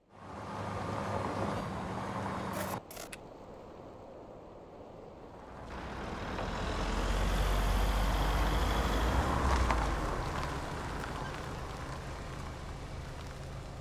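Pickup truck engine running: a steady low hum at first, broken by an abrupt cut about three seconds in. The engine then builds louder, is loudest midway, and eases back to a steady run.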